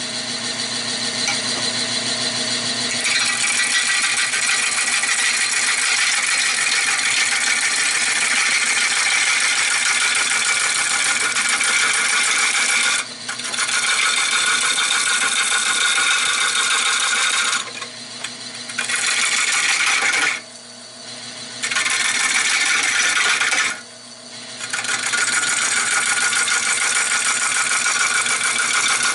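Turning tool cutting a spinning, out-of-round redbud blank on a wood lathe at about 360 RPM, a loud scratchy, rattling cut as the blank is rounded over. The cut stops briefly about four times, when the tool comes off the wood.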